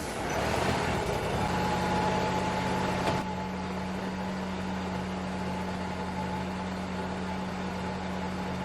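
Wood-Mizer LT35 portable sawmill's engine running steadily with a low hum. A broad hiss over it stops with a click about three seconds in.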